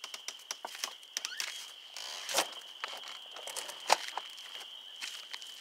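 Insects trilling steadily at one high pitch, with scattered clicks and footsteps over it.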